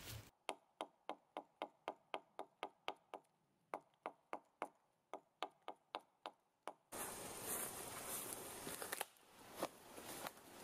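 A knife blade chopping shallow notches into a wooden ridge pole: an even run of sharp strikes, about three or four a second, with two short pauses. About seven seconds in this gives way to a faint outdoor hiss with a few soft knocks.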